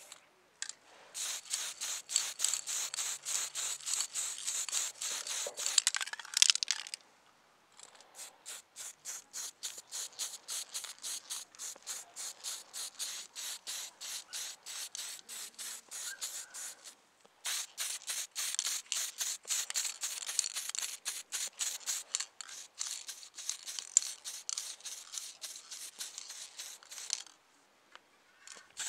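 Aerosol can of acrylic spray paint hissing in rapid short bursts, about four a second, as coats of paint go onto a small model car body. The bursts stop briefly about a third of the way in, again past the middle, and near the end.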